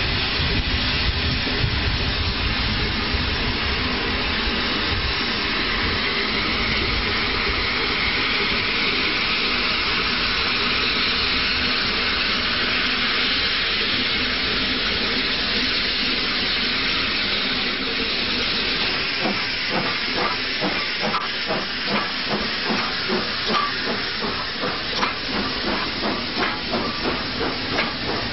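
Steam locomotive hissing steam steadily. About two-thirds of the way through, a regular chuffing of roughly two exhaust beats a second sets in and grows stronger as the locomotive works past.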